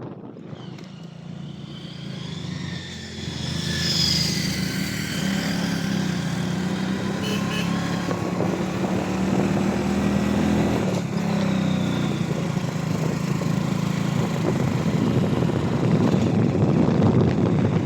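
A vehicle engine running steadily on the move, with wind buffeting the microphone more strongly near the end.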